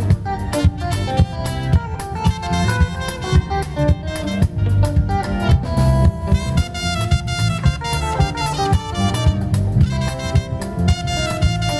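Live band playing an instrumental on drum kit, bass guitar, lead guitar and keyboard, with a steady run of drum hits under the melody.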